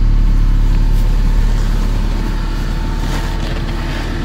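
Diesel car engine idling steadily just after a hard cold start in about −30 °C frost, heard from inside the cabin. It grows slightly quieter from about two seconds in.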